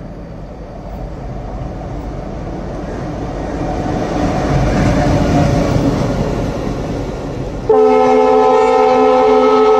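Indian Railways diesel locomotive approaching and passing at speed, its engine and wheel noise building to a peak about five seconds in. Near the end, a diesel locomotive's horn starts abruptly and sounds as one steady, loud chord of several notes.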